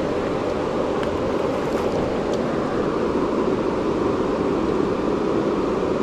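Steady, even rushing of flowing river water, with a few faint ticks in the first half.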